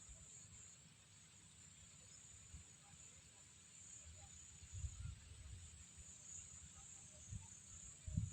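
Faint outdoor background: a steady high-pitched hiss with a few soft low bumps, the loudest about five seconds in and near the end.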